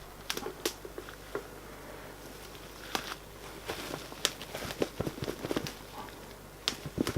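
Irregular light clicks, taps and rustles of heater parts and plastic packaging being handled.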